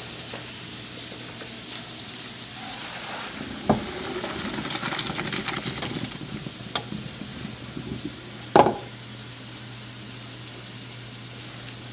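Boiled orzo and its hot water poured from a stockpot into a colander in the sink, the water rushing out for a few seconds from about four seconds in, with clunks of the metal pot, the loudest near nine seconds in. Chicken sizzles in a frying pan in the background throughout.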